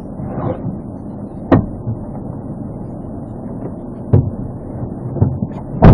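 Steady low rumble of an idling vehicle, with three sharp knocks: one about a second and a half in, a smaller one about four seconds in, and the loudest at the very end.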